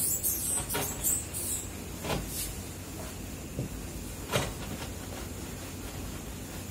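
Whiteboard eraser wiping across a whiteboard in irregular strokes, with a few short scrapes and knocks, over a low steady hum.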